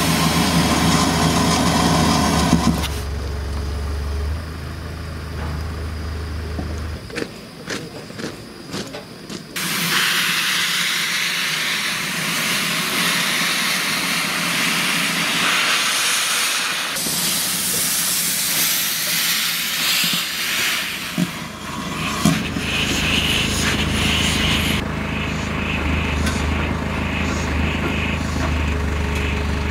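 Steam hissing loudly from the open cylinder drain cocks of GWR 2800 Class 2-8-0 locomotive no. 2807 as it gets under way, in long stretches. Between them are quieter spells with a few knocks, and a low steady rumble at the start and near the end.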